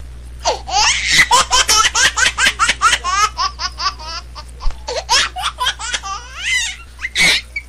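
Hearty laughter in rapid rising and falling bursts over a steady low hum. It cuts in and out abruptly, like a laughter sound effect laid over the video.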